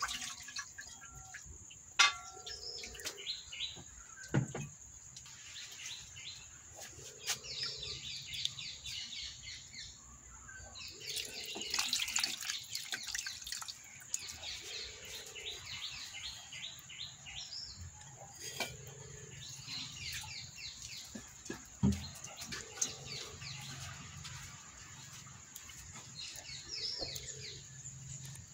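Birds chirping in quick repeated trills, with a low call coming back about every two seconds. Hands swish and splash spiced water over fish pieces in a clay pot, with a few sharp clinks of a plate.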